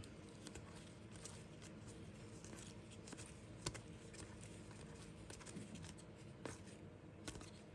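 Faint handling of trading cards: soft slides and light clicks as cards are flipped through, with a couple of sharper ticks.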